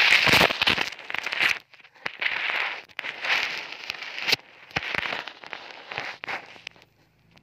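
Tokay gecko hissing in a series of about six harsh, breathy bursts with short gaps between them, mouth gaped wide in a defensive threat. A few knocks at the start.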